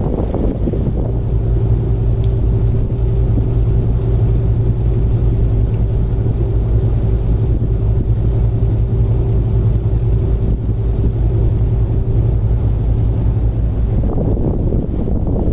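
Harbour ferry's diesel engines droning steadily underway, a low hum with a fainter higher tone, heard from inside the passenger cabin. The tones fade near the end and wind buffeting the microphone takes over.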